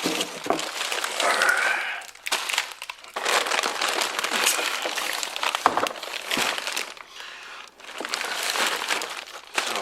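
Plastic packaging crinkling and rustling as parts are handled, in bursts with short lulls between them.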